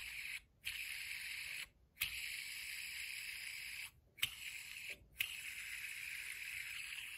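The bearing of a Comma 2.0 metal fidget spinner whirring as it is flicked into a spin four times. Each spin starts with a sharp flick, runs as a steady high whir for about one to two seconds, and stops abruptly when it is caught by the fingers.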